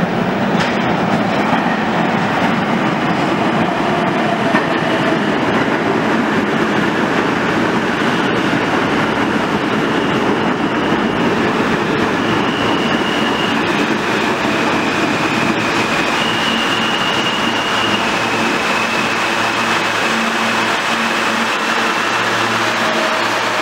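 R160 subway train pulling into the station and braking to a stop, a loud continuous rumble of wheels on rail. High whining tones come in and step up and down in pitch from about a third of the way in until shortly before the end, as the train slows.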